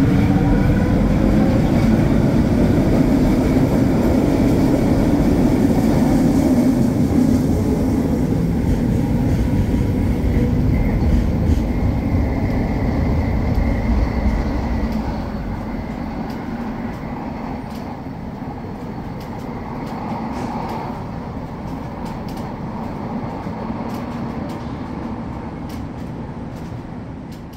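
A SkyTrain train pulling out of the station: a rising motor whine at the start, then a loud rumble on the guideway that fades about halfway through to a quieter, steady rumble as it moves away.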